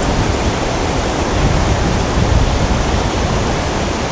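Ocean surf, a steady rush of breaking and washing waves.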